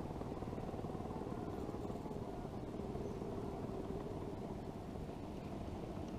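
Steady low outdoor rumble with a faint hum.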